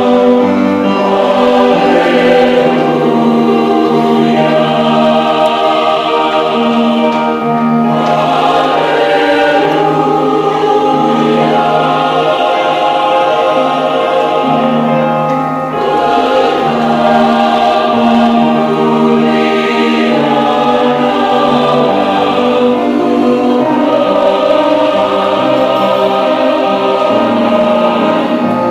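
Choir singing a church song in several voice parts, with short breaths between phrases about a quarter and about halfway through.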